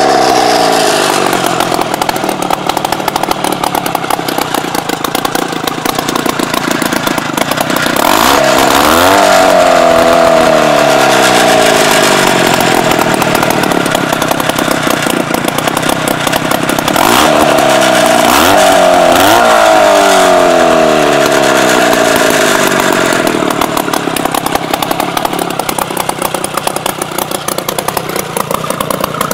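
Rotax 399cc two-stroke twin snowmobile engine running on a go-kart, newly brought back to running after being blown up. It is revved repeatedly: the revs fall at first, climb about 8 seconds in and hold high for several seconds, climb again with a quick blip about 17 seconds in, then drop back to a lower steady run near the end.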